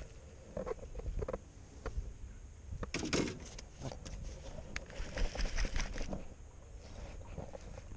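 Handling noise from fishing rods and reels being picked up and worked in a small boat: scattered clicks, knocks and rustling of gloves and sleeves. The loudest cluster of knocks comes about three seconds in, and more clicks follow around five to six seconds.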